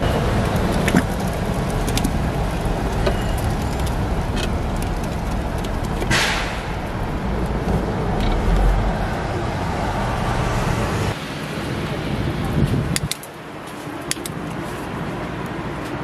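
Steady street noise from passing traffic and the city around, with a few short clicks and knocks and a brief hiss about six seconds in.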